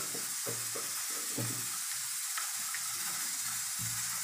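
A steady hiss, with a few light clicks of a knife blade meeting a steel plate as it cuts through soft dhokli dough.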